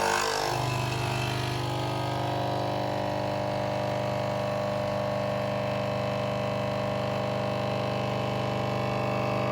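Nespresso Inissia's pump buzzing steadily as it brews a lungo, settling into an even hum about half a second in. It is loud for a small machine.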